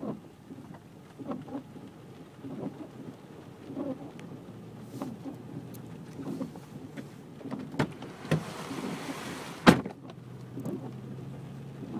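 Heavy rain on a vehicle driving through flood water, with a soft thump repeating about every second and a quarter. Near the end a rush of spray builds and is cut off by a sharp loud knock.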